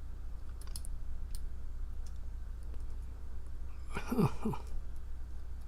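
Faint, irregular light clicks of a lock pick working the small pins inside a challenge padlock. A brief murmur from the picker about four seconds in, over a steady low hum.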